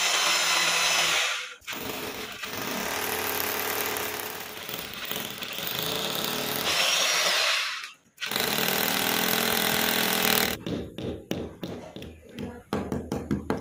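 Corded rotary hammer drill boring into a plastered wall, running in three bursts with short pauses between. Near the end it stops and a small hammer knocks wall plugs into the drilled holes in a run of quick, light taps.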